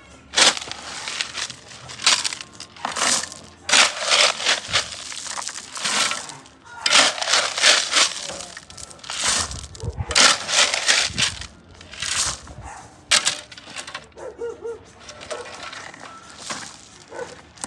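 Construction work: an irregular run of harsh scraping and crunching strokes, a dozen or so, growing sparser and quieter near the end.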